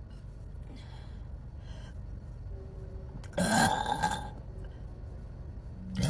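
A woman burps once, about halfway through, a loud pitched burp lasting under a second; another burp begins just at the end.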